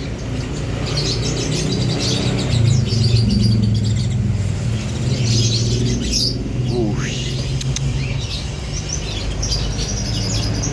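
Many caged songbirds chirping and twittering at once, with short high calls overlapping all through, over a steady low hum.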